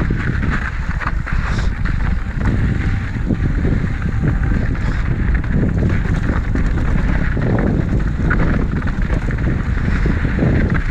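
Wind buffeting the rider's camera microphone as an Ibis Mojo HD4 mountain bike rolls over a dirt trail, with scattered short clicks and rattles from the tyres and bike.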